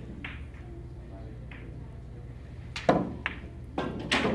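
A pool shot: the cue tip clicks against the cue ball about three seconds in, followed within the next second or so by several sharp clacks of billiard balls striking one another.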